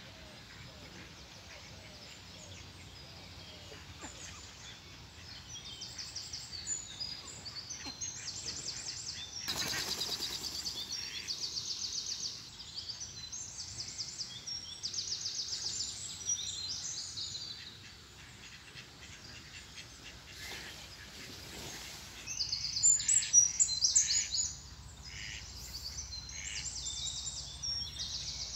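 Small songbirds singing in repeated high, rapid trills and chirps, one phrase after another, loudest about twenty-three seconds in.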